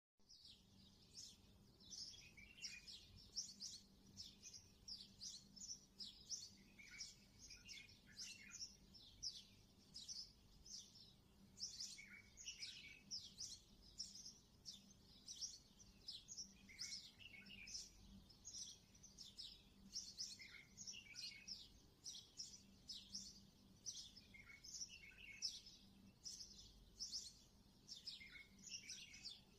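Small birds chirping continuously: many quick, high chirps, each sweeping downward in pitch, several a second, over a faint low hum.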